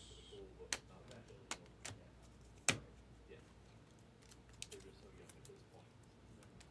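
Trading cards being handled: irregular sharp clicks and taps as cards in a stack are flipped and set down, the loudest a little under three seconds in.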